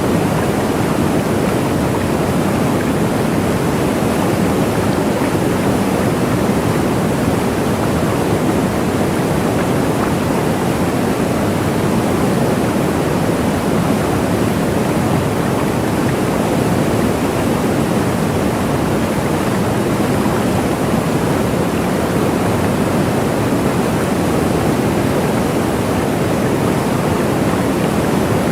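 Waterfall: a steady, unbroken rush of falling water with a deep, full sound.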